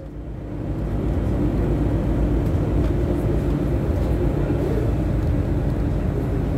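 Steady low engine rumble and running noise heard from inside a vehicle moving across an airport apron, fading in over the first second.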